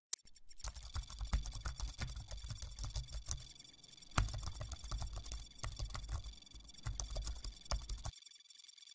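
Keyboard typing sound effect: rapid, irregular key clicks with dull low thuds. It stops about eight seconds in, leaving only a faint steady high tone. A short loud burst of noise comes right at the start.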